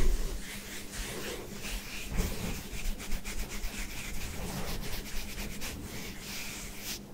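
Fingertips rubbing and scratching over short buzz-cut hair and scalp, a dense scratchy crackle of bristles that runs on with the hand strokes.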